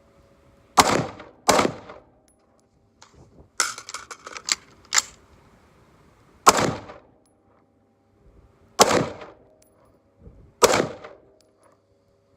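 Daniel Defense Mk18 AR pistol with a 10.3-inch barrel firing 5.56 rounds one at a time: five loud single shots at uneven spacing, two close together near the start and three spread through the rest. Between them, about four seconds in, comes a quicker cluster of quieter sharp cracks and clicks.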